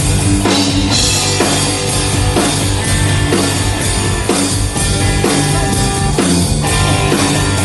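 Live rock band playing: electric guitars over a drum kit, with strong drum hits about once a second.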